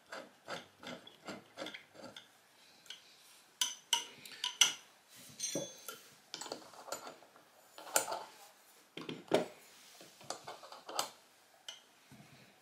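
Steel nut being spun along an M10 threaded rod behind a drill chuck, a quick even rasping about three strokes a second for the first two seconds. Then scattered metallic clicks and clinks as the nut is tightened against the chuck.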